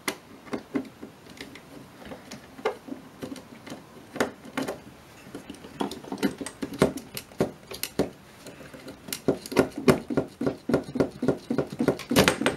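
Small clicks and knocks of hand work on a metal electronics chassis: a screwdriver on the screws of a plug-in circuit board, small screws being handled, then the board being worked loose from its slot. The clicks come scattered at first and crowd into a rapid run of them near the end.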